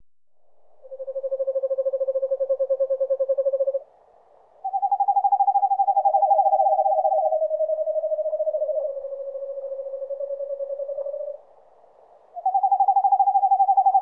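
Eastern screech-owl calling: a rapid, even-pitched trill lasting about three seconds, then a longer whinny-like trill that steps down in pitch over about seven seconds. A higher trill starts near the end.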